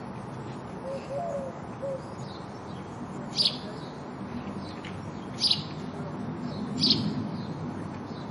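House sparrows chirping. There are three loud, short chirps, each about two seconds apart in the second half, with fainter chirps in between, over a steady low background noise.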